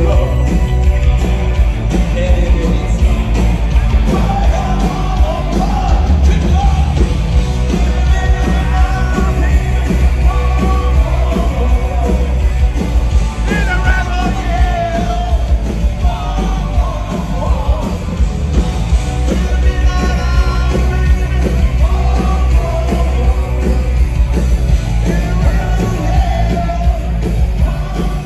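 Loud 1980s rock music playing, with sung vocals, and people close by singing along and yelling.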